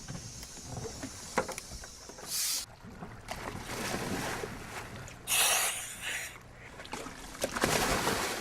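Sounds aboard a small boat on the water: wind on the microphone, with three short bursts of hiss and a sharp click.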